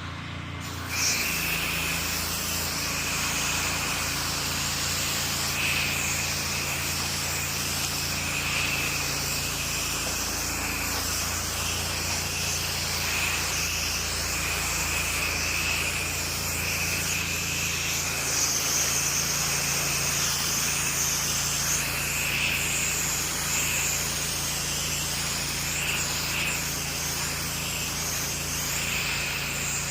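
Pressure washer running steadily: a constant low engine hum under the hiss of water spraying.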